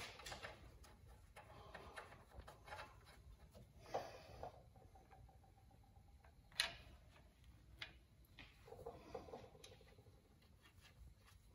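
Near silence with a few faint clicks and knocks of hand tools being handled, the sharpest one about two-thirds of the way in.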